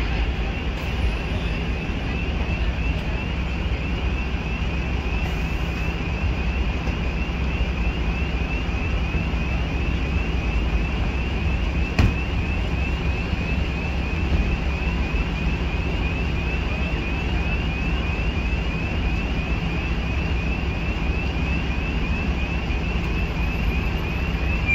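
Steady low rumble of idling fire-engine diesel engines, under a high electronic alarm repeating a short rising sweep about twice a second. One sharp click about halfway through.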